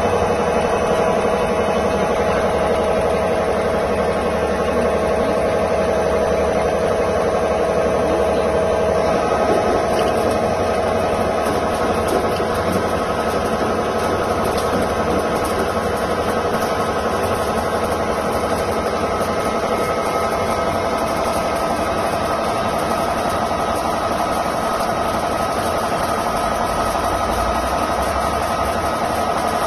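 CNC lathe running, its spindle turning a steel bar while the tool post feeds a cutting tool along it: a steady machine whine over a mechanical hum, its tone shifting slightly about nine seconds in.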